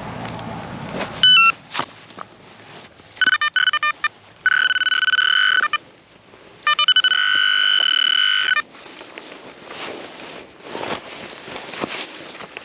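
Garrett Vortex VX9 metal detector sounding target tones as the coil passes over buried metal: a short stepped beep about a second in, broken beeping around three seconds in, then two held tones of about a second and a half and two seconds.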